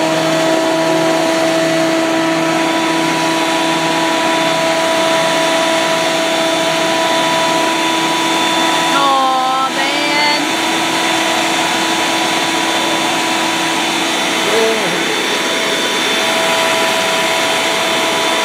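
Benchtop thickness planer's motor running steadily at full speed, a loud, even whine.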